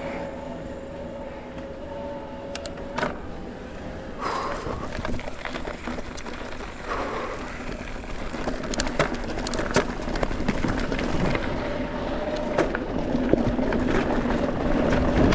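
Mountain bike ridden fast down a dirt jump line: tyres rolling on dirt and wind on the microphone, a steady buzz from the coasting rear hub, and sharp knocks from landings and chain slap. It grows louder as the speed builds.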